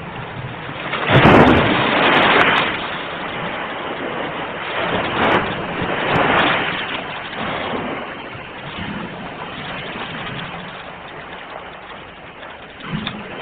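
Sea waves breaking and washing over the shore. The biggest crash comes about a second in, smaller surges follow around five and six seconds, and a short one comes near the end, all over a steady hiss of surf.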